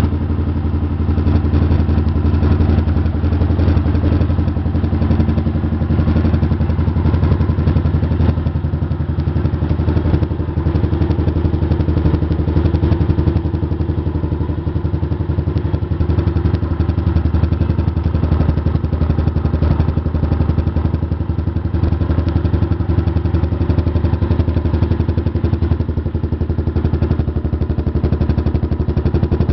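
Honda CG 125 Fan's single-cylinder four-stroke engine idling steadily, an even putter from its exhaust.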